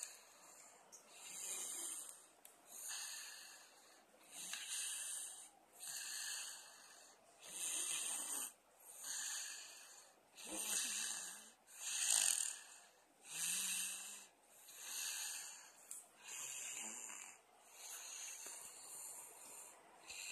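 Snoring: wheezy, hissing breaths repeated steadily about once every second and a bit, some with a low rattle.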